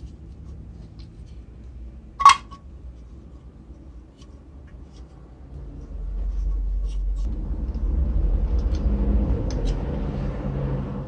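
Metal parts of a rusty Boston hand-crank pencil sharpener being handled and taken apart: one sharp metallic clink about two seconds in, then from about six seconds on louder rubbing and scraping of the parts in the hands, with small clicks.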